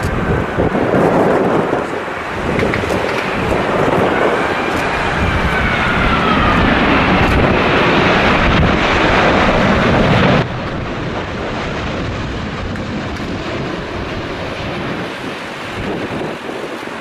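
Boeing 787 airliner's jet engines on approach: a loud rush with wind buffeting the microphone and an engine whine that rises and then falls in pitch. About ten seconds in the sound cuts off sharply to a quieter steady rush of engine and wind.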